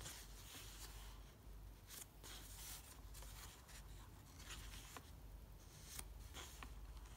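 Pages of a handmade-paper sketchbook turned by hand: faint papery rustles and soft flicks, several times over.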